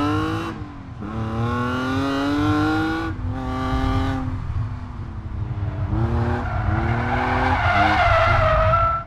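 A Mk1 Mazda MX-5's engine revving hard, its pitch climbing and then breaking off several times at gear changes. Near the end the tyres squeal as the car slides through a bend.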